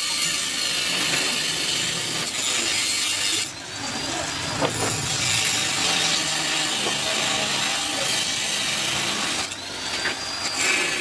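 Angle grinder with its disc on a steel bar, a loud steady grinding hiss. Twice, about a third of the way in and near the end, the disc eases off the metal and the motor's whine rises as it speeds up freely.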